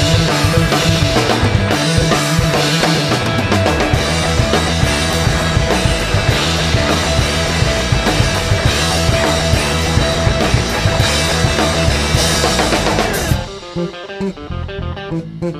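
Rock band playing an instrumental passage: drum kit with a steady beat, bass and guitar. About thirteen seconds in the full band cuts out abruptly, leaving a quieter guitar line.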